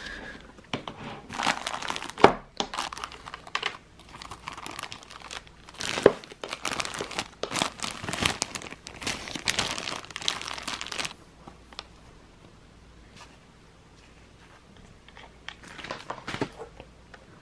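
Thin plastic bag lining a tub of baking soda crinkling and rustling as it is handled and pulled open, in repeated bursts for the first ten seconds or so, with a couple of sharp clicks among them. After a quieter pause, another short burst of crinkling comes near the end.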